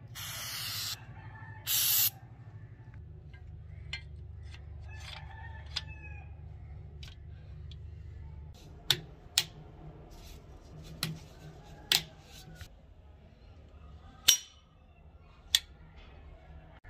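Two short hisses from an aerosol spray can at the start, then a run of sharp metallic clicks and clacks as the antique German bolt-action rifle's bolt and action are worked, the loudest click about two-thirds of the way through.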